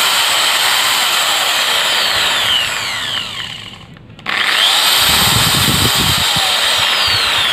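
INGCO ID6808 680-watt corded hammer drill running free with no load: a steady high motor whine. It winds down about three seconds in, goes briefly quiet, then starts up sharply again a second later and runs on.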